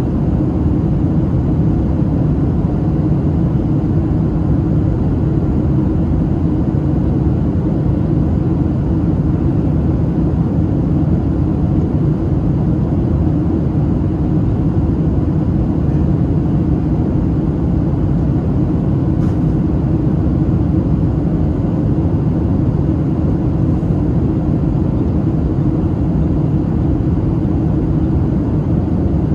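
Steady cabin noise of a Boeing 737-700 in flight, heard from a window seat: an even, low rumble of engine and airflow noise during the descent toward landing.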